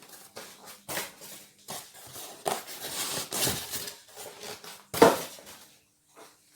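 Exercise-bike parts and their packaging being handled while unpacked: metal parts clinking and knocking, with packaging rustling in the middle and one loud knock about five seconds in.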